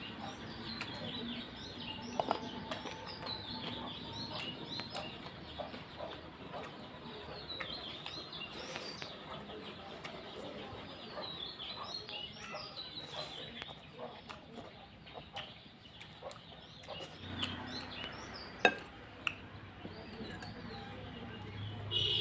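Birds chirping steadily in the background, many short falling chirps, mixed with scattered sharp clicks and eating sounds from a meal of rice and chicken curry.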